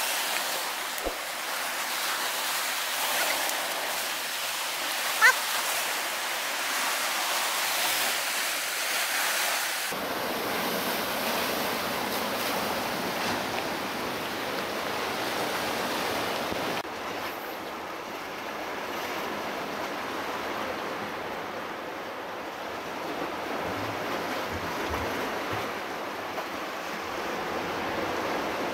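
Ocean surf washing and breaking over a rock shelf, a steady rushing with wind on the microphone. A single sharp click about five seconds in.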